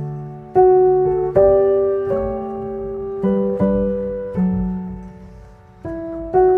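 Background music: slow, gentle solo piano, single notes and chords struck one after another and left to fade.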